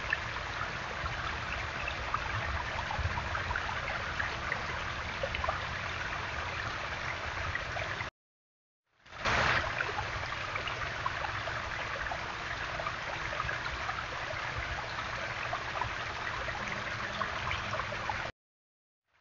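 Small garden waterfall: water running steadily down over the stones. The recording drops out for about a second around eight seconds in, then picks up again.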